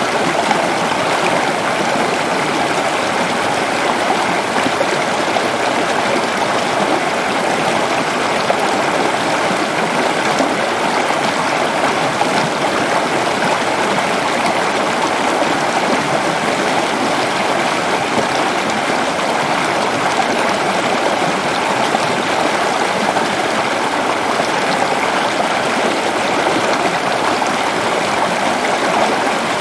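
Waterfall in a forest: water falling and rushing in a steady, loud, unbroken roar.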